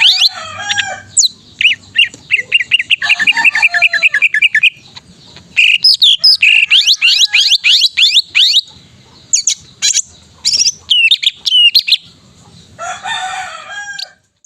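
Male cucak ijo (greater green leafbird) in full, loud song: rapid falling whistled sweeps, a fast trill of repeated notes, then separate sharp notes and a lower warbled phrase near the end.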